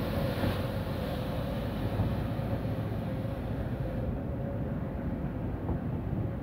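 Narrow-gauge steam locomotive hauling its train slowly past: a steady rumble with a faint steady whine.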